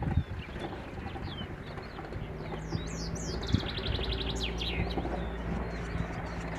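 Small songbirds chirping, with a fast trill about halfway through. A steady low hum comes in about two seconds in and runs underneath, and there are a few low knocks at the start.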